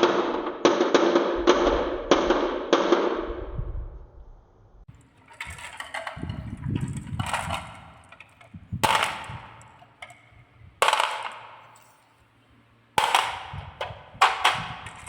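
Marbles running down a wooden marble run: a quick series of about five knocks in the first three seconds, then separate sharp clacks that ring briefly every second or two as the marbles drop and strike the track pieces.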